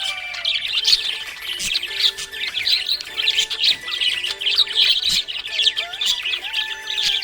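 Budgerigars chirping and chattering, a dense, continuous stream of quick, high chirps.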